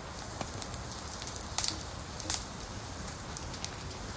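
Open cooking fire crackling steadily, with a few sharp pops, the loudest near the middle.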